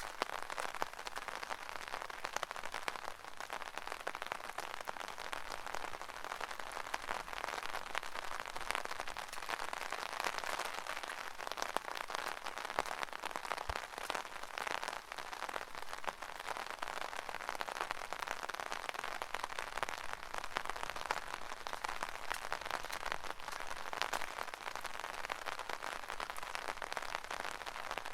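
Rain pattering steadily on an umbrella, heard from underneath: a dense, even patter of many small drop hits.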